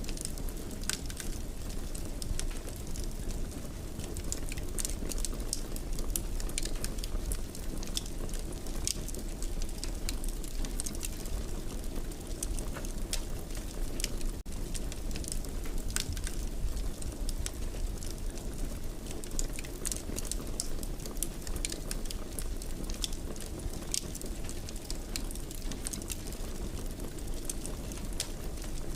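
Fire burning in a fireplace, crackling: frequent sharp little pops at an irregular pace over a steady low rumble.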